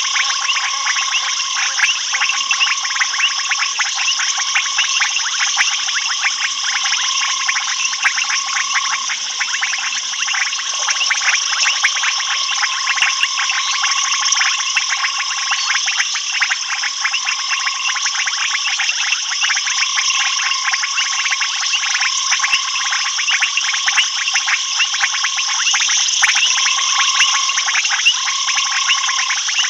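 Night chorus of frogs and insects: a dense, rapid clicking and trilling with a constant high-pitched insect drone. A frog trill near the middle range keeps stopping and starting every second or two.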